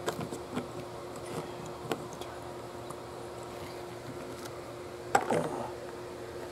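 LEGO plastic clicking and tapping faintly as a small brick-built robot figure is handled and set upright on a LEGO baseplate, with one louder knock about five seconds in. A steady faint hum runs underneath.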